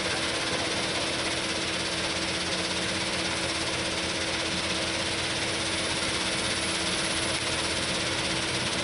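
An engine running steadily: an even drone with a constant low hum that doesn't change.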